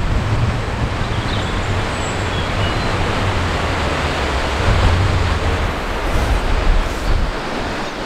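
Wind buffeting the microphone, a low uneven rumble over a steady rushing hiss.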